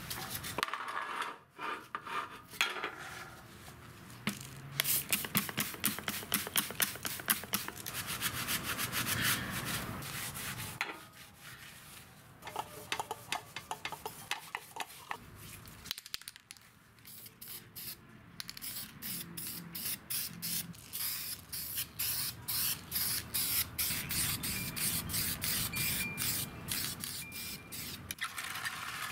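Quick, rhythmic back-and-forth rubbing of a gloved hand wiping and scrubbing scooter parts by hand: a paper towel over a black plastic floor panel, then the exhaust muffler. It comes in several spells with short pauses between.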